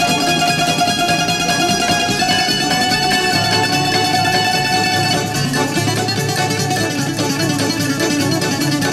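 Greek bouzouki instrumental music: a plucked bouzouki plays the melody, holding long notes for the first five seconds or so, over a lower accompaniment.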